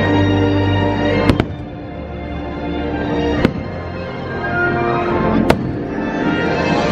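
Fireworks show soundtrack music playing loudly, punctuated by aerial firework bangs: a double bang just over a second in, then single bangs about two seconds apart. The music dips after the first bangs and swells again.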